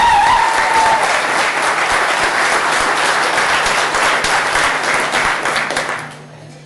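Audience applauding in a hall, with the last held note of the dance music fading out about a second in; the clapping dies away about six seconds in.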